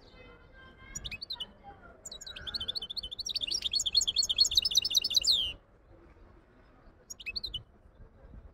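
Goldfinch hybrid singing: a short burst about a second in, then a fast phrase of rapid high notes lasting about three seconds that stops abruptly, and another short burst near the end.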